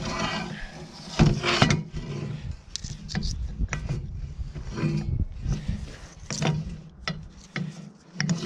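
Worn universal joint on a John Deere 710D backhoe drive line, worked back and forth by hand. Irregular metal clunks and rubbing come from the slop in the joint, with the loudest knocks about a second in.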